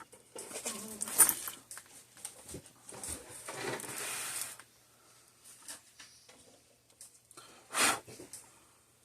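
Workbench handling noises during circuit-board repair: irregular rustles, scrapes and a longer hiss over a faint steady hum. A short sharp scrape comes near the end.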